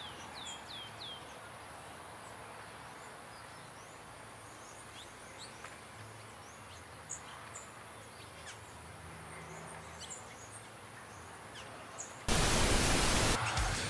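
Small wild birds chirping over a steady outdoor background, opening with a quick run of four falling notes and then scattered short high calls. About twelve seconds in, a sudden loud rush of noise cuts in and drowns them out.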